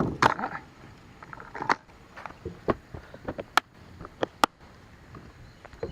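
Scattered sharp clicks and light knocks of a plastic bait tray and its lures being handled, about a dozen, irregularly spaced.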